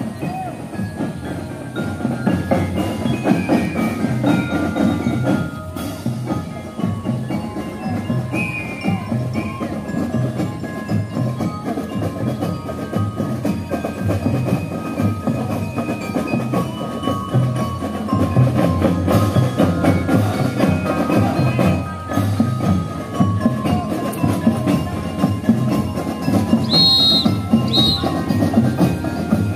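Marching drum and lyre corps playing: drums keep a steady march beat under a ringing melody on bell lyres.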